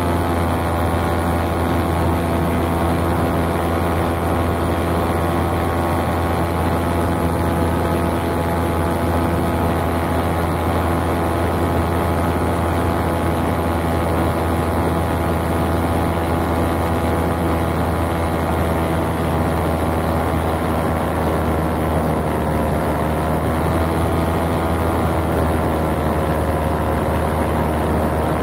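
Paramotor engine and propeller running steadily in flight, a constant drone. The pitch sags slightly about three-quarters of the way through and comes back up near the end.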